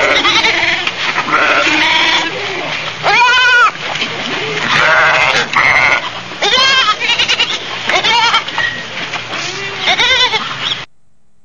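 A flock of sheep bleating, many calls overlapping, some long and quavering. It cuts off abruptly near the end.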